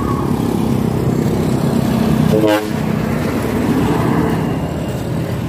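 Heavy truck engine running as it drives past, with a short vehicle horn toot about halfway through.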